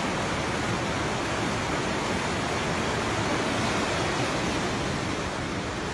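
Fast-flowing muddy floodwater in a swollen river, rushing over rocks in a steady, even noise.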